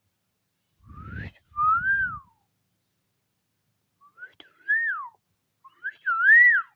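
A person whistling with the lips: three two-note whistles, each a short rising note followed by a longer note that rises and then falls, with a low rumble under the first.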